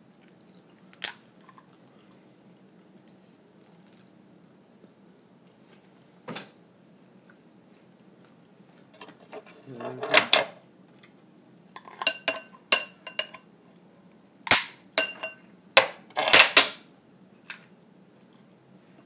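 Cooked lobster claw shell being cracked and snapped apart by hand: sharp cracks and clicks, a couple on their own early on, then quick clusters through the second half. Some carry a short ringing note.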